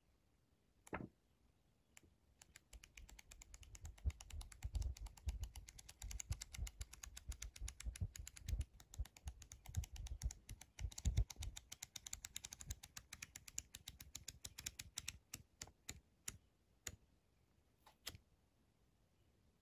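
Pages of a hand-drawn paper flipbook flicking off the thumb in quick succession: a fast, dense run of dry paper clicks that thins to a few single flicks near the end. One lone click about a second in.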